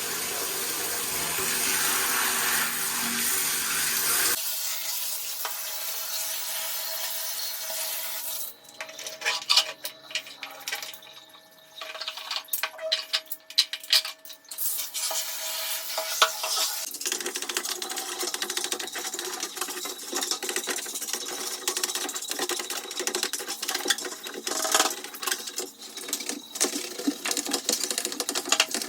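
Water running for about four seconds, then it stops abruptly and gives way to irregular clicks and scrapes. From about halfway on, a brush scrubs quickly against the plastic parts of a semi-automatic washing machine, in a dense, scratchy run of strokes.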